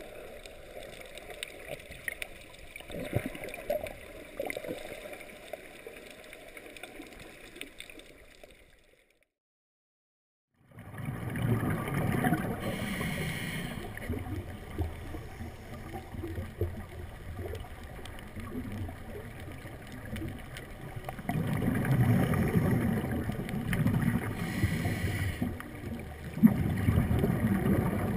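Underwater ambience: steady rushing water noise with swells of gurgling bubbles. The sound cuts out completely for about two seconds in the middle, then returns louder.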